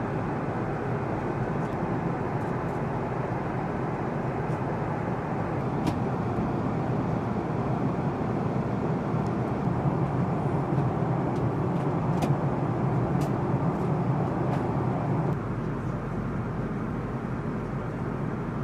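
Steady rumble and rush of air inside a large jet aircraft in flight, its engines and airflow heard through the cabin. The low part of the rumble shifts slightly about 15 seconds in.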